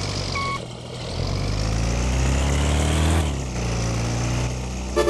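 A bus engine revs up, rising in pitch for about two seconds, then drops back and runs steady. A last short beep from the reversing alarm sounds at the very start.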